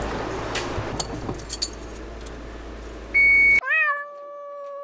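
Keys jingling and clicking at the ignition, then a short loud steady beep. The car's own sound then cuts out completely, and a long wavering cat meow plays over the silenced track.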